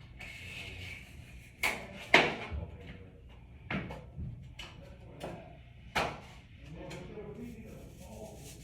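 Particleboard slats being handled and set down against the raceway, giving several sharp wooden knocks, the loudest about two seconds in, with light rubbing and shuffling between them.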